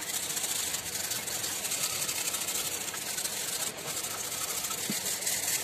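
Hand wire brush scrubbing rust off the rusted metal body of a submersible pump motor in rapid back-and-forth scraping strokes.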